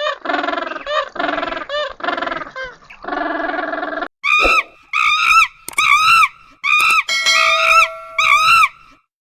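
Two kinds of farm animal call. For the first four seconds a pitched, buzzy call is repeated several times. After a brief gap comes a run of short, higher calls, each rising and falling in pitch, roughly two a second.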